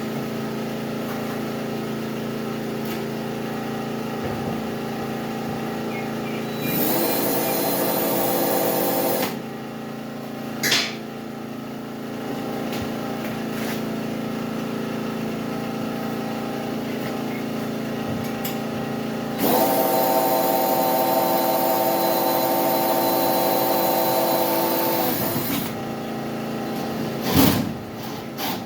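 A power drill runs twice at a steady speed, first for about two and a half seconds and then for about six seconds, driving screws to mount a wall hanger. Underneath is the steady hum of a running engine, and there are a few sharp knocks.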